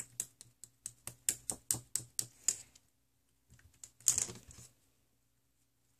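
Bouncy homemade slime being patted and pressed with the fingers, making a rapid run of sharp, sticky clicks, about six a second. After a short pause, a louder cluster of clicks and rustle comes about four seconds in, then it goes quiet.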